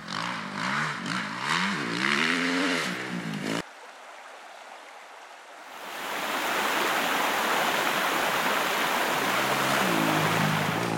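Motorcycle engine revving up and down for about three and a half seconds, then cutting off abruptly. After a quieter stretch, a mountain waterfall's loud steady rush comes in about six seconds in, with the motorcycle engine rising and falling under it again near the end.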